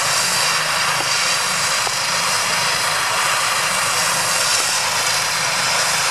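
Eurocopter EC135 air-ambulance helicopter running on the ground before take-off, its turbine engines and main rotor giving a steady whine and rushing hiss.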